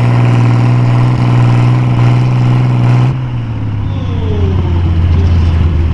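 A 6,000 lb farm-class pulling tractor's engine running hard at a steady high speed, then coming off the throttle about three seconds in, its revs falling away.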